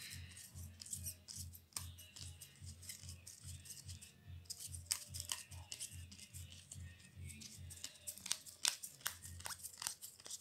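Glossy football trading cards being flicked through by hand: quick papery rustles and sharp clicks as each card slides off the stack, busiest near the end. Beneath them is a faint low hum that pulses evenly about three times a second.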